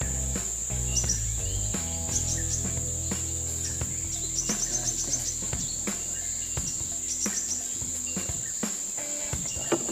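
Steady high-pitched drone of crickets or similar insects, with quick short chirps about two to five seconds in, over low held background music.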